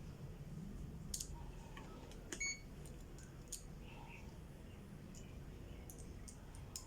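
Faint scattered clicks of a digital clamp meter and its test leads being handled, with one short electronic beep from the meter about two and a half seconds in.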